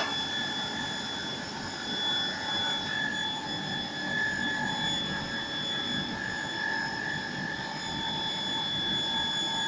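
Steady machine whine with several high tones held over a low hum, from a large pneumatic press closed during a pressing cycle.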